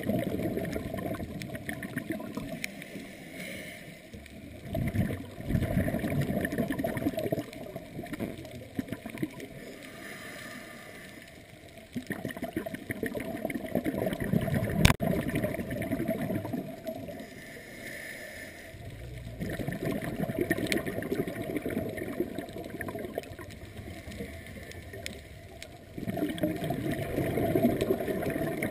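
Scuba diver's regulator exhaust bubbles heard underwater, gurgling in repeated surges every six or seven seconds with quieter stretches between, plus a single sharp click about halfway through.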